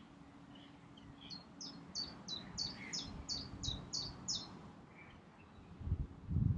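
A songbird singing a run of about ten short high notes, each falling in pitch, roughly three a second. Underneath is a low rumble, with louder low thumps near the end.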